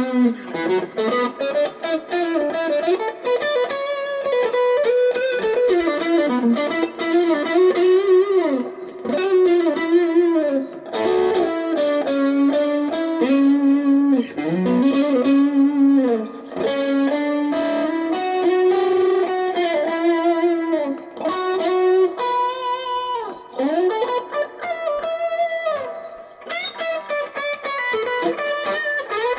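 Stratocaster-style electric guitar played lead with single-note melodic lines, many string bends and vibrato, in its raw sound through a mobile phone's microphone.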